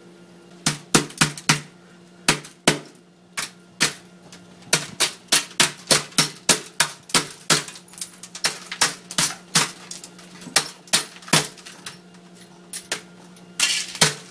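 Hatchet chopping into an LCD monitor's exposed circuit boards and metal chassis: dozens of sharp hits in uneven runs, up to two or three a second, with a brief lull near the end.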